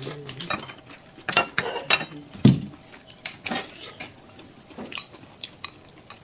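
Eating utensils clicking and scraping against dishes, with one heavier knock about two and a half seconds in.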